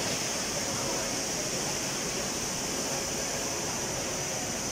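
Steady background hubbub of a busy railway station concourse: a crowd's indistinct voices blended into an even hiss.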